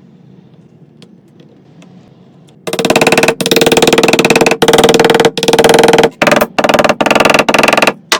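Hand saw cutting wood in quick back-and-forth strokes, starting loud about three seconds in after a quiet stretch with a few light clicks.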